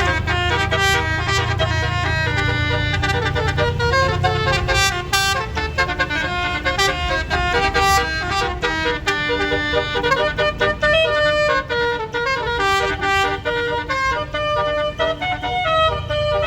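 Bus telolet horn with basuri roof-mounted trumpets playing a fast tune of short stepped notes. A low rumble sits under it for the first four seconds or so.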